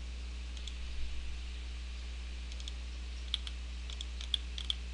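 Scattered light clicks of a computer mouse, a small cluster about a second in and several more in the last two seconds, over a steady low hum.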